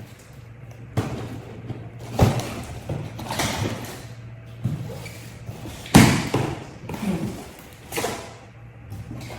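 A cardboard box being handled and opened: irregular thumps and knocks with rustling and scraping between them, the loudest thump about six seconds in.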